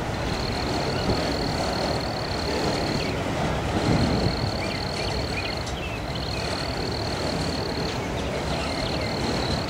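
Autorack freight cars rolling slowly past on jointed track, with a steady low rumble and clatter of wheels on rail. Over it, a high steady trill repeats in bouts of two to three seconds with short breaks.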